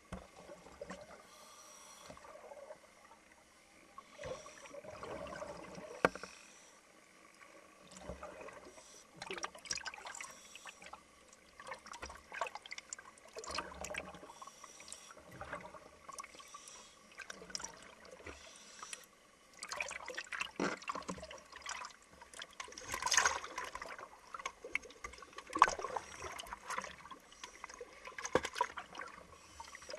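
Sea water splashing and gurgling in irregular bursts, partly muffled as the camera dips in and out of the water, while a hooked shark struggles at the side of a canoe. The splashing grows louder in the second half.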